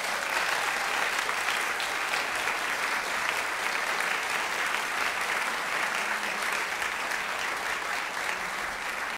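Audience applauding: many hands clapping together in a dense, steady wash.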